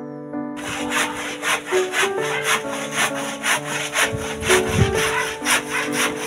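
Handsaw cutting through wood in quick back-and-forth strokes, about two to three a second, over background music.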